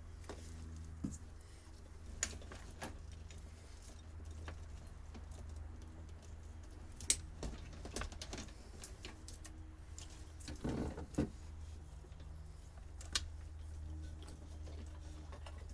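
Scattered sharp clicks and light rattles from hands working at old boat wiring and its small fittings, with a short rustling scrape about two thirds of the way through, over a steady low hum.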